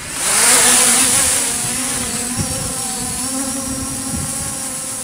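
JJRC JJPRO X3 HAX quadcopter's brushless motors and propellers spinning up and lifting the drone off, a steady buzzing whine. A loud rush of air peaks about half a second in and then eases as the drone climbs away.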